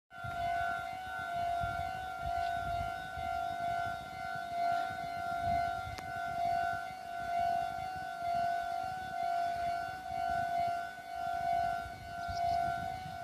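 Railway level-crossing warning bell sounding without a break: a steady electronic tone that swells and fades about once a second, the signal that a train is approaching.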